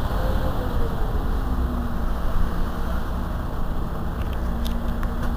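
Mercedes-Benz Citaro C2 city bus standing at idle, its rear-mounted engine running with a low rumble and a steady hum. A few faint ticks come near the end.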